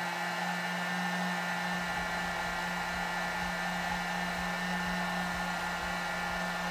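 Electric heat gun running steadily: a constant rush of blown air with a low hum from its fan motor.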